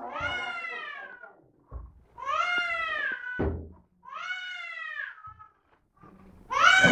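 A crawling baby gives three short, high whining cries, each rising and then falling in pitch, with a few soft thumps of hands on the floor between them. A louder voice starts near the end.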